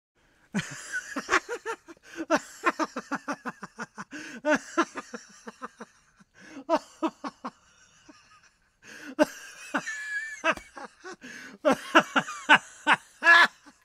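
Hearty human laughter in rapid 'ha-ha-ha' bursts, falling away for a couple of seconds past the middle and then breaking out again.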